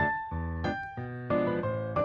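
Background music: a light piano or electric-piano tune, notes struck in a steady bouncy rhythm.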